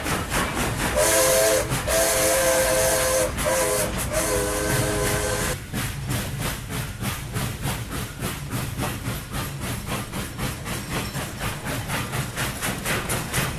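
Steam locomotive running with a steady rhythmic chuff, about four beats a second. From about a second in until nearly six seconds in, its chime whistle sounds a chord in a few blasts, with a burst of steam hiss at the start.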